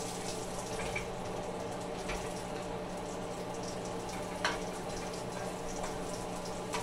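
Small banana pancakes frying in a skillet with a steady low sizzle, as a spatula scrapes and taps against the pan a few times while flipping them, the sharpest tap about four and a half seconds in. A steady low hum runs underneath.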